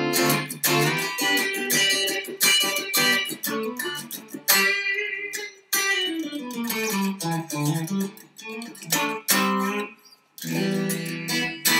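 Home-built electric guitar played through an amp with the 5-way switch in position 2: the two outer humbucker coils split, giving a twangy Strat-like tone. It plays a passage of picked notes and chords, with a note sliding down in pitch about halfway through.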